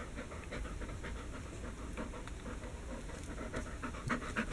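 A dog panting steadily, a quick even rhythm of short breaths.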